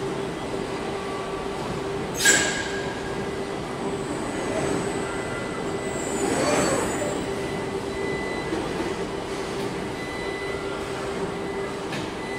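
Robotic car-body welding line running with a steady machine hum, a sharp hissing burst about two seconds in, and a whine that sweeps up and down around the middle as the robot arms move.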